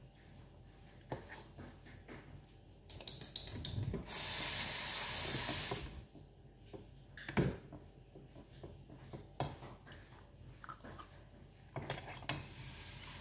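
A metal fork clicking and scraping against a plate while eating, in scattered single clicks. A steady loud hiss runs for about two seconds in the middle, and a fainter one near the end.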